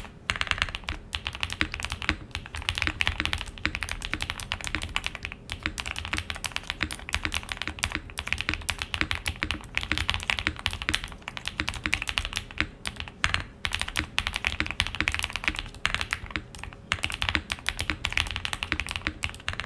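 Continuous fast typing on a Mr. Suit R2 mechanical keyboard with Owlab Tungsten switches: a dense stream of key clacks with a few brief pauses.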